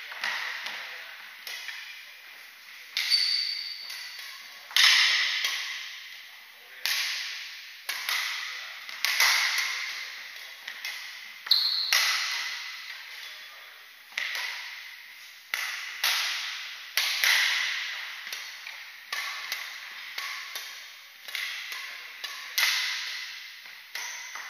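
Badminton rackets striking a shuttlecock in a fast rally: sharp hits roughly once a second, each ringing on in the reverberation of a large hall. Two brief high squeaks stand out, one about 3 seconds in and one near the middle.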